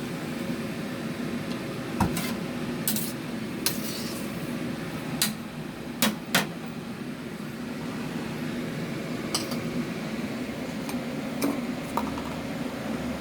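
Kitchenware being handled: scattered, irregular clinks and knocks of dishes, pots and utensils over a steady low hum.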